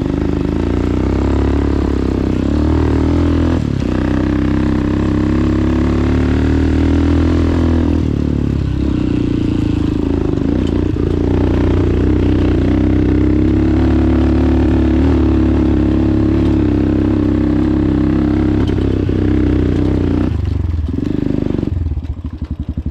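Dirt bike engine pulling up a rough, rocky track, its pitch rising and falling several times with the throttle. Near the end it drops to a lower, evenly pulsing idle as the bike stops.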